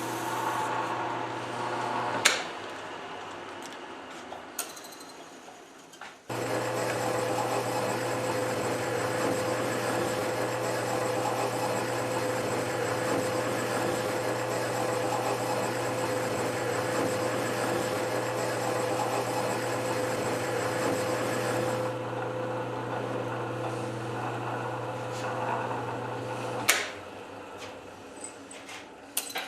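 Metal lathe motor running steadily, switched off with a click about two seconds in and coasting down. It starts again a few seconds later, runs steadily for about twenty seconds, then is switched off with another click near the end.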